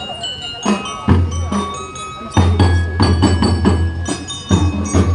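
Drum and lyre band playing: ringing bell-lyre notes over steady drumbeats, with a deep low drone that comes and goes underneath.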